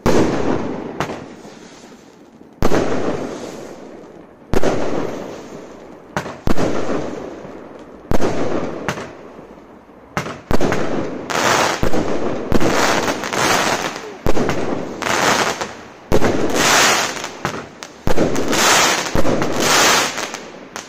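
Consumer firework barrage cake firing. Each shot goes off with a sharp bang and then a decaying crackle, one every second or two at first. About halfway through the shots come faster and the crackling grows louder and denser.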